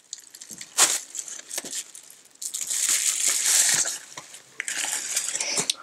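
A plastic bubble-wrap bag crinkling and rustling as it is handled and a plastic timer is pulled out of it, with sharp crackles along the way. The loudest rustle comes from about halfway through.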